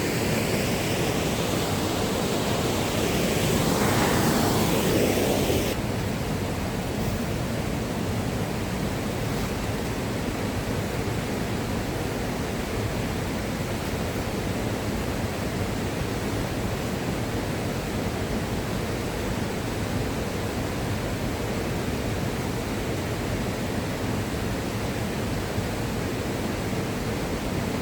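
A powerful waterfall rushing, a steady noise throughout. About six seconds in it turns duller as the high end drops away.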